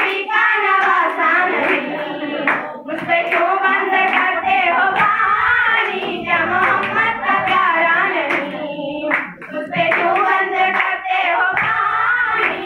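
A group of girls singing together, with hand claps sounding through the song.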